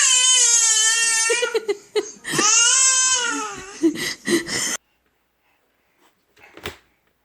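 Baby crying: two long high wails of about a second each, then shorter sobs that cut off suddenly about five seconds in. A single faint knock comes near the end.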